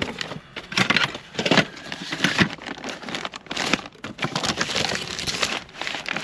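Loose metal hand tools and hardware clattering and clinking irregularly as they are rummaged through in a tool box drawer, with a few louder knocks about a second in.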